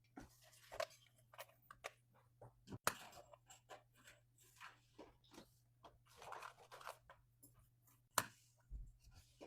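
Quiet handling sounds: soft rustling and crinkling with scattered light clicks as small items and packaging are handled, and two sharper clicks, about three seconds in and near the end.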